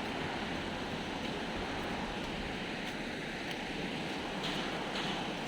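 River water rushing, a steady even noise of fast-flowing water.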